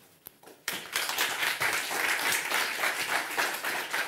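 Audience applauding, starting suddenly under a second in and going on steadily.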